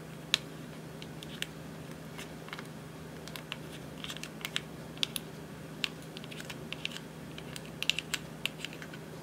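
Clear slime being mixed by hand, giving off irregular sticky clicks and small pops that come thicker in the second half.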